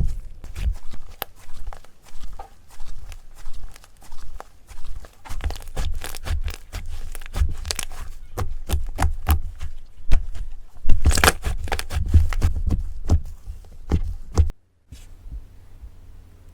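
Slime being squeezed and stretched by hand, making a dense run of crackles and pops, loudest about eleven seconds in. It stops abruptly near the end, leaving a much quieter stretch.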